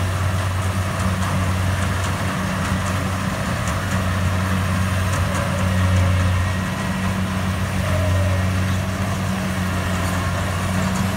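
Rice combine harvester running steadily as it harvests through a paddy field: a low, even engine drone that swells a little around six and eight seconds in.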